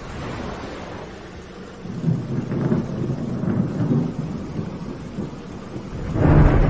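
Thunderstorm: thunder rumbling over steady rain. A low rumble swells about two seconds in, and a louder thunderclap breaks near the end.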